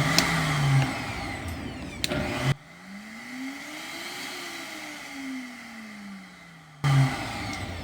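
Vitamix 7500 blender motor running, working again after a fix to its speed-control board. About two and a half seconds in it drops suddenly much quieter, with a tone that rises and then falls back, and the loud running returns near the end.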